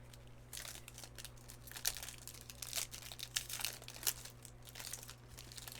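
Plastic wrapper of a baseball card pack being torn open and crinkled, in a run of irregular crackles.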